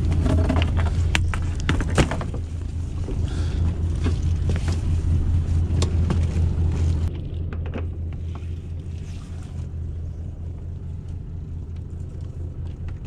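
A fishing boat's engine running with a steady low hum, with sharp knocks and clatter from gear being handled over the first seven seconds or so. After that the sound turns quieter and duller.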